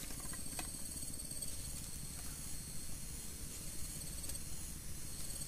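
Quiet outdoor ambience: a steady, thin high-pitched insect drone over a low rumble, with a couple of faint small clicks.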